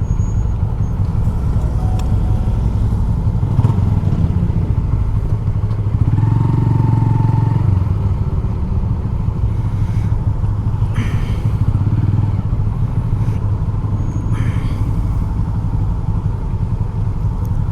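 Motorcycle running with a steady low rumble, heavily mixed with wind buffeting the microphone. Two brief hisses about 11 and 14 seconds in.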